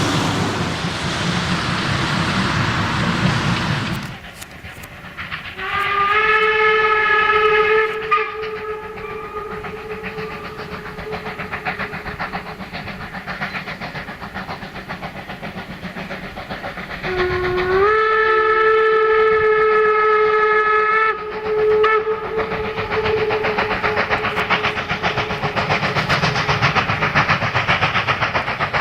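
Steam whistle of the class 52 steam locomotive 52 1360, blown twice as long blasts of about three seconds, each rising slightly in pitch as it starts. A loud rushing noise fills the first few seconds and stops suddenly, and the rhythmic clatter of the train grows louder near the end.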